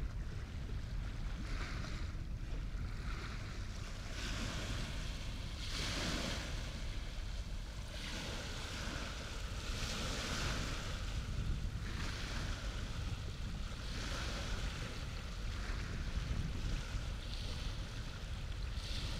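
Wind buffeting the microphone as a steady low rumble, with water washing in hissing surges that swell and fade every couple of seconds.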